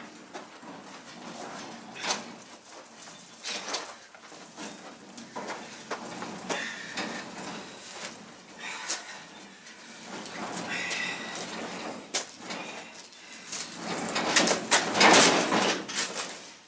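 Small caster wheels and boots crunching and knocking on gravel as a steel pickup cab is dragged along on a dolly, getting louder as it comes close near the end. Birds chirp now and then.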